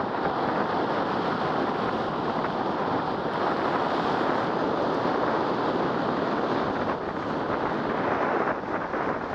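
Steady wind rushing over the camera microphone at downhill speed, mixed with the rolling noise of urethane longboard wheels on asphalt.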